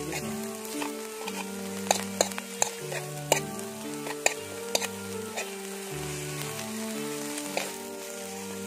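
Red weaver ants (angkrong) frying in a steel wok while a metal spoon stirs and scrapes them, with a steady sizzle. Sharp taps of the spoon against the pan come thickest between about two and five seconds in.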